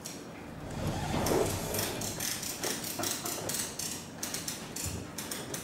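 Irregular clicks, knocks and rubbing as a heavy upholstered tube is handled and slid along the long cylinder arm of an industrial sewing machine, loudest about a second in.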